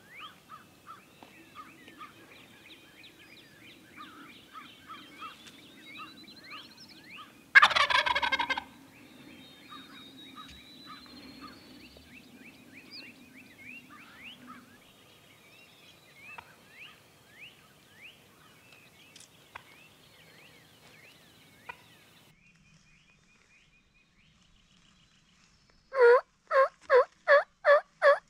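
Wild turkey gobbling once, a loud rattling call about a second long, about eight seconds in, over scattered faint bird chirps. Near the end comes a loud run of about seven evenly spaced turkey yelps.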